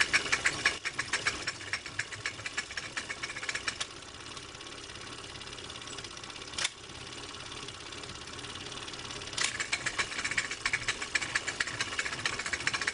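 Steady, rapid mechanical clatter from a small machine running, fading somewhat in the middle; a single sharp click about six and a half seconds in, and it grows louder again about nine and a half seconds in.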